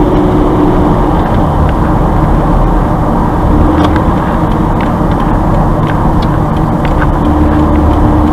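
Steady road and engine noise inside a moving car's cabin as it drives on at an even pace, with a low hum and a few faint ticks.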